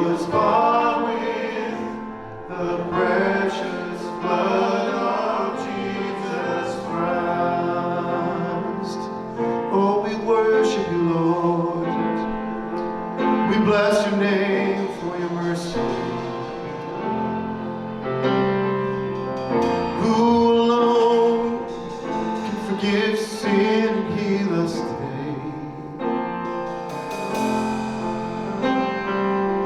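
Church worship music: voices singing a gospel-style song over instrumental accompaniment, continuing without a break.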